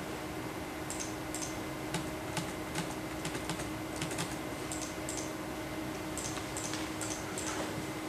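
Keys being pressed on an HP laptop keyboard: a run of light, irregularly spaced clicking taps.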